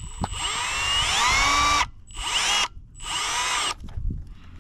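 Cordless power driver spinning on the wheel nut of an RC truck's tire, run in three bursts: a long one of nearly two seconds, then two short ones. The motor whine rises in pitch as it spins up at the start of each burst.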